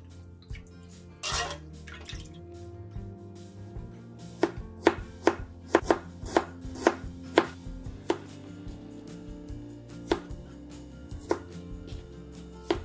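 Chef's knife slicing fresh ginger and garlic on a plastic cutting board, each cut ending in a sharp tap of the blade on the board. The taps come about twice a second in a run through the middle, then only now and then, over quiet background music.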